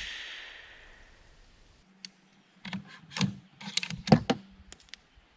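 The echo of a 6.5 Creedmoor rifle shot dying away over about a second, then a string of sharp metallic clicks and clacks as the bolt of a Savage Model 110 Precision is worked and the spent casing ejected.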